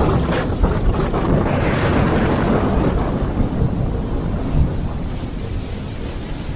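Thunder from a thunderstorm: a crackling clap near the start rolls into a long, low rumble that slowly fades, over a steady hiss of rain.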